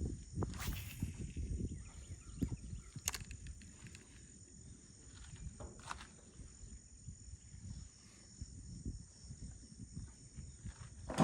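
Shoreline ambience: a steady high-pitched insect drone over a low, uneven rumble, broken by a few sharp clicks, one about half a second in, others near three and six seconds.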